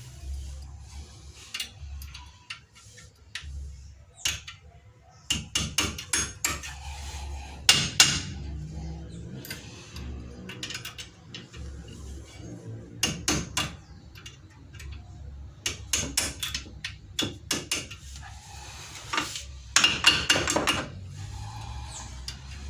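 Sharp metallic taps and clinks in irregular bursts from hand work on a VW Gol's front disc brake, fitting the brake pad retaining hardware.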